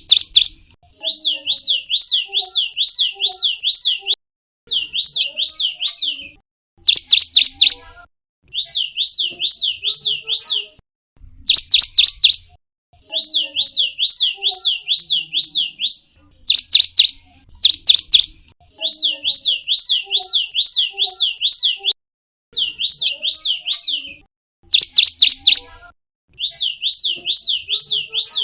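Cinereous tit (gelatik batu) singing continuously: phrases of quickly repeated sweeping whistled notes, each phrase a second to three long, with short pauses and brief sharper, louder notes between them.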